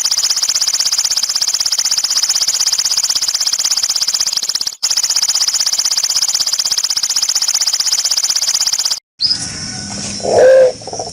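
A shrill, rapidly and evenly pulsing high buzz runs for about nine seconds, with a brief break near the middle, then cuts off. A green pigeon then gives a short, loud, low coo near the end.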